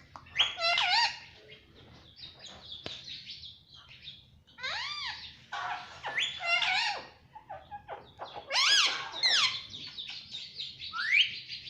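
Indian ringneck parrot chirping and calling: clusters of short, arched calls that rise and fall sharply in pitch, with softer high chatter between them and a single upward-sliding call near the end.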